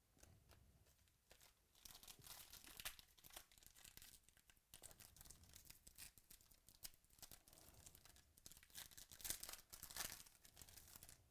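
A trading-card pack's foil wrapper being torn open and crinkled by hand: a run of quiet crackling rips that starts about a second and a half in and is loudest near the end.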